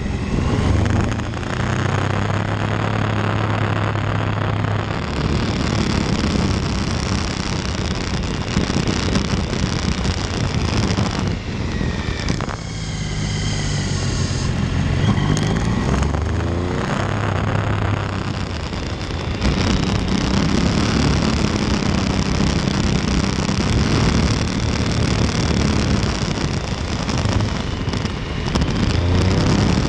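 Motorcycle engine running as the bike rides through bends, its pitch dipping and climbing a few times with throttle and gear changes, over wind rushing past the microphone.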